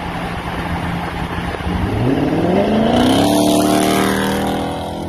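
Car engine under hard acceleration, its pitch climbing steeply about two seconds in and then holding high, over heavy road and wind noise.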